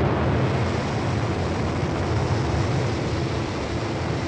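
Steady rocket-engine roar from the descent stage's thrusters during powered descent: a deep rumble under a wide rushing hiss, holding level throughout.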